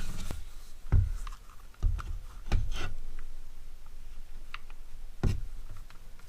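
Handling noise from a cordless drill and its strap: a few dull knocks, light clicks and rubbing, the strongest knocks about a second in and near the end.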